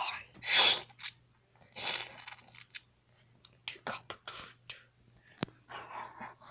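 A child's hissing, crunching mouth sound effects of battle in short bursts, the loudest about half a second in, followed by a few sharp clicks of plastic toy figures knocking on a plastic playset.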